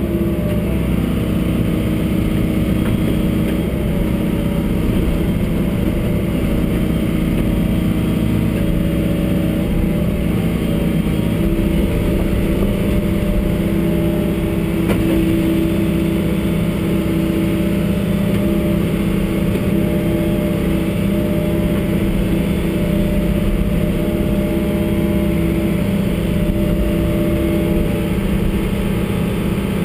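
John Deere 75D excavator's diesel engine and hydraulics running steadily under load, heard from inside the cab as the operator works the boom and bucket; the drone rises and falls a little as the hydraulics are worked.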